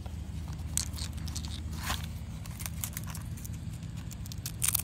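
Hands fastening a strap around a phone and its wiring on an RC car: scattered small clicks, rustles and a few brief scratchy noises, the loudest near the end, over a steady low hum.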